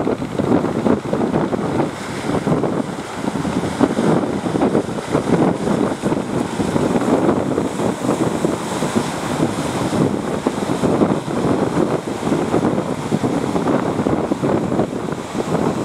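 Strong wind buffeting the microphone over choppy sea and breaking surf, a loud, steady noise that rises and falls in gusts.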